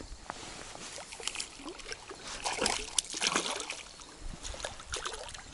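Water splashing and trickling beside a small boat as a hooked zander is played and brought in on spinning tackle, with scattered short clicks and knocks, the sharpest about three seconds in.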